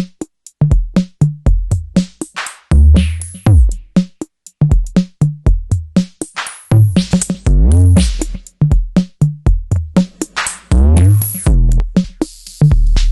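Elektron Analog Rytm MKII analog drum machine playing a factory pattern. Kick, hi-hat-like clicks and bass notes run in a steady sequenced beat, with filter sweeps rising and falling several times. Near the end a sustained low bass tone with hiss comes in.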